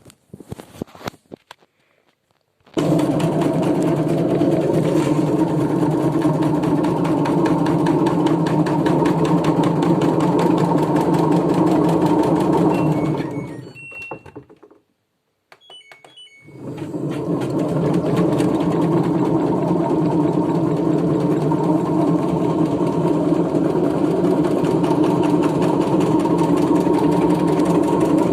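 LG washing machine running a spin and rattling hard as it jumps, then dying away for a couple of seconds with a few short beeps, and starting again. The title ties this to the machine's sudslock, its excess-suds condition, interrupting the spin.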